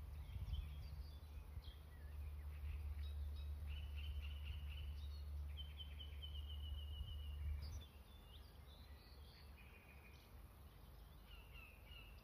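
Several songbirds singing and calling, with one fast, even trill in the middle. Underneath, a low steady rumble cuts off suddenly about two-thirds of the way through.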